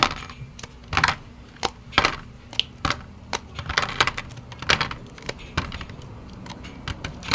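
Frozen rice cubes clicking and clattering as they are knocked out of an ice cube tray and dropped into an airtight container: a run of sharp, irregular clicks and knocks, a few every second.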